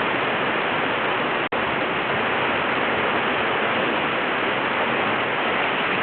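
Whitewater rushing: a steady, loud rush of river water, with an instant's dropout to silence about a second and a half in.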